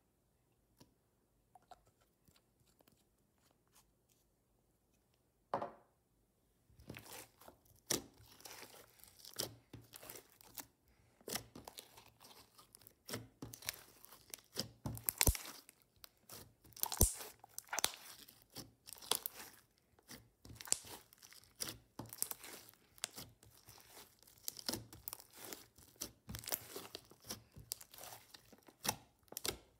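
Hands kneading and folding a mass of white slime with small beads mixed through it: irregular sticky crackling and popping, starting about seven seconds in after a few faint clicks.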